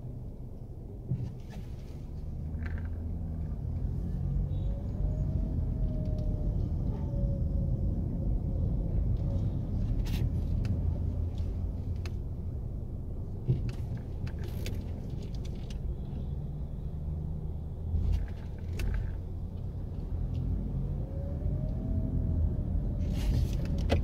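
Low, steady rumble of a car's engine and tyres heard from inside the cabin as it creeps forward at low speed, with a few faint clicks.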